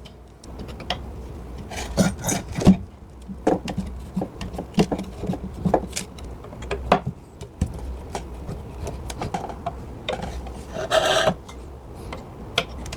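Hand screwdriver backing wood screws out of a chair seat board: irregular scraping and clicking as the blade works in the screw heads and the screws turn in the wood, with a louder rasping stretch near the end.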